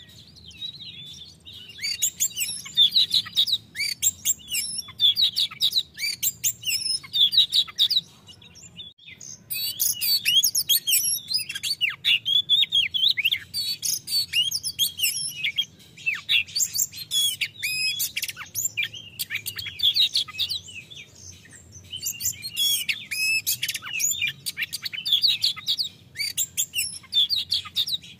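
Male oriental magpie-robin singing a loud, full song of rapid, varied whistles and chirps in long phrases, with short pauses about 8, 16 and 21 seconds in.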